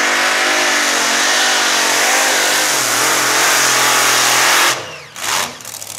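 Multi-engine modified pulling tractor with supercharged engines running at full throttle during a pull, its pitch wavering up and down. About five seconds in the engines are abruptly cut back, followed by one short blip.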